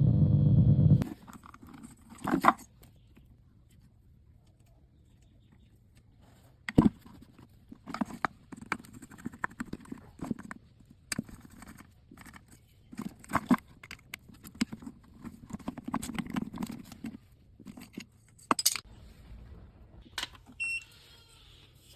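A loud buzzing tone for about the first second, then irregular sharp clicks, taps and light metallic clinks, like small parts and tools being handled on a bench.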